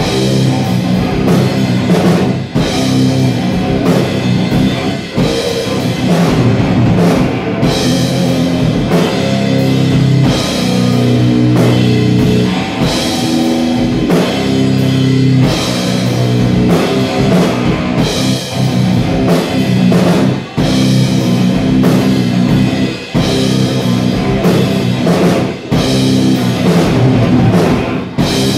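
A live heavy rock band plays a loud, riff-driven section, with guitar over a full drum kit and frequent cymbal crashes.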